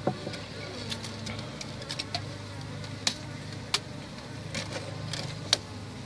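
Honey bees buzzing in a steady low hum around the opened hive, with several sharp clicks and taps from hands working the comb and wooden frame.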